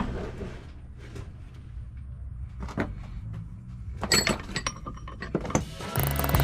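Metal parts of a Borg Warner T96 three-speed manual transmission being knocked and handled while a gear is worked out: one sharp knock at the start, another about three seconds in, then a quick run of metallic clinks and rattles. Background music comes in near the end.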